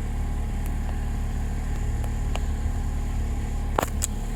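Jeep Wrangler JL engine idling steadily, heard from inside the cabin, with two sharp clicks close together near the end.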